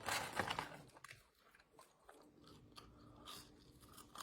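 A person biting into crunchy food and chewing close to the microphone: a burst of crunching in the first second, then faint, scattered mouth clicks of chewing.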